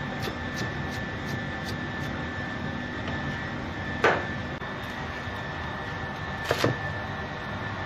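Kitchen knife chopping on a plastic cutting board: light taps about three a second for the first couple of seconds, then a single sharp knock about four seconds in and a quick double knock near the end as the blade cuts through a leafy head onto the board. A steady hum runs underneath.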